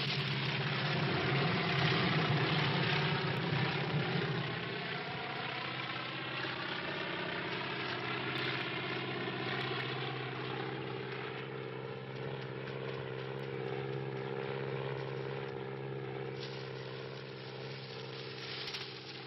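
A steady engine-like drone, a low hum with even overtones under a noisy rush, loudest in the first few seconds and fading toward the end.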